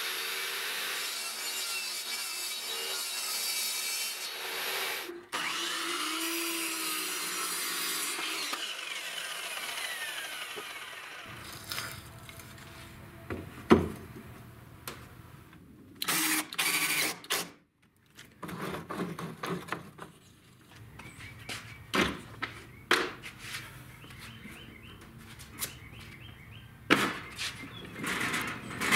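Portable table saw cutting plywood for about ten seconds, with a short break about five seconds in. Then come short bursts of a power drill and scattered knocks and clicks of wood and metal as casters are fastened to a plywood cart frame.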